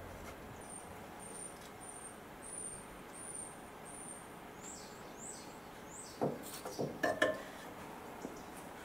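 A small bird singing in the background: a run of short, high, even notes followed by three quick falling notes. About six to seven seconds in, several sharp metallic clinks and knocks from metal parts being handled.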